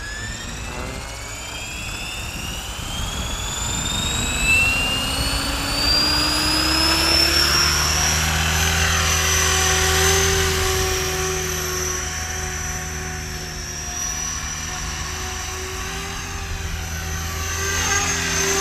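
KDS Innova 550 electric RC helicopter spooling up on short 520 mm main blades. The motor and gear whine climbs steadily in pitch for about eight seconds as the rotor comes up to head speed, then holds level with the rotor's steady beat as it lifts off and flies, swelling briefly near the end.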